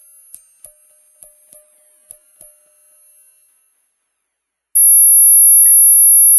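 Ultra high-pitched steady tone for tinnitus relief, with faint regular ticks riding on it. The tone fades away over a second or so, then a slightly lower high tone comes in abruptly about five seconds in, with its own ticks.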